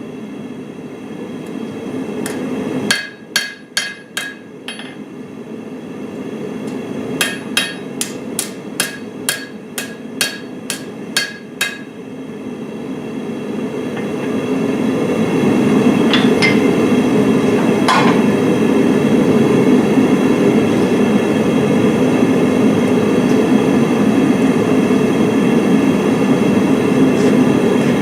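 Hand hammer striking hot steel on an anvil as a fire steel is forged from an old file: a short run of about six ringing blows, then after a pause a run of about ten. A steady rushing noise runs underneath and grows louder in the second half, when the hammering has stopped.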